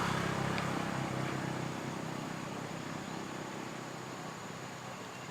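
A motor vehicle engine running, fading steadily as it moves away.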